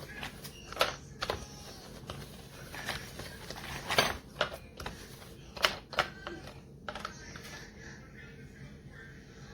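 Irregular clicks and knocks of a plastic twist-type meat shredder being handled, its parts tapping and clattering together, with the sharpest knocks about a second in, around four seconds in and near six seconds in.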